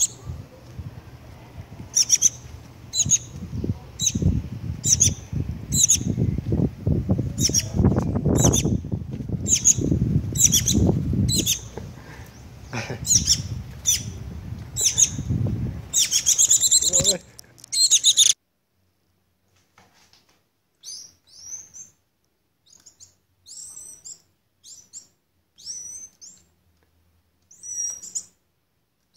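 Sharp, high bird chirps repeated every half second or so over a low rumble; about 18 s in the sound cuts to faint, scattered high calls from a shiny cowbird chick calling with its beak open.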